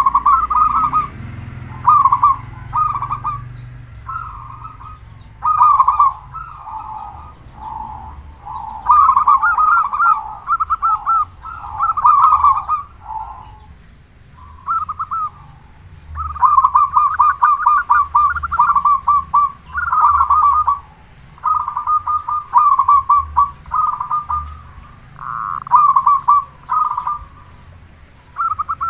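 Zebra dove (perkutut) calling with a big voice: rapid, rolling coo phrases repeated over and over, with short pauses between them.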